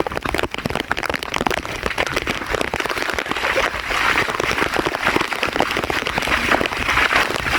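Heavy thunderstorm rain pouring down, a steady dense crackle of drops.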